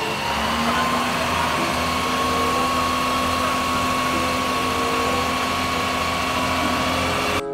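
Isuzu FVZ water tanker truck's diesel engine running steadily under a steady rushing hiss from the jet of its roof-mounted water cannon.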